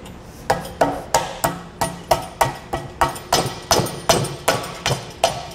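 End cap being knocked into the end of a steel rail adapter tube by repeated blows of the hand: a steady run of sharp knocks, about three a second.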